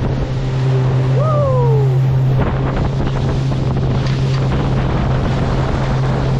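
Boat motor running under way, a steady low hum, with wind buffeting the microphone and water rushing. A short falling cry sounds about a second in.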